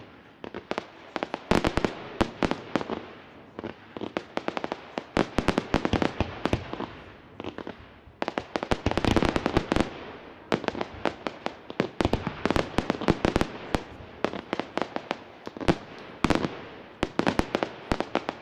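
A fireworks display: rapid, dense crackling and popping from bursting crackle stars and shells, coming in waves that build and thin out.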